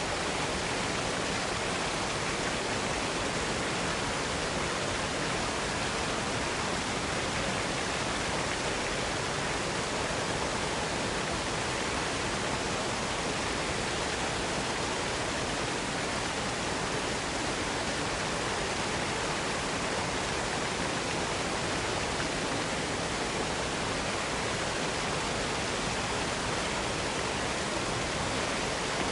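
Waterfall rushing: a steady, unchanging wash of falling water with no breaks or separate events.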